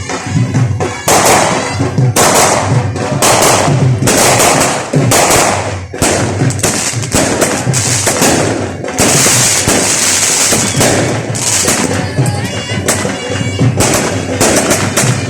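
Firecrackers going off in quick, dense runs, a continuous crackling of sharp bangs, with music playing underneath.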